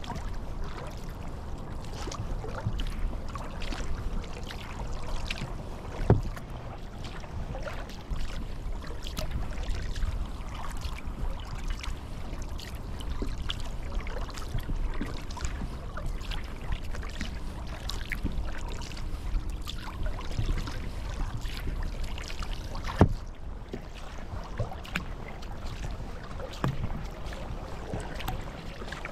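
Sea kayak paddle strokes on calm water: irregular drips, trickles and small splashes from the paddle blades dipping in and lifting out. Two sharp knocks stand out, one about six seconds in and one a little past three-quarters of the way through.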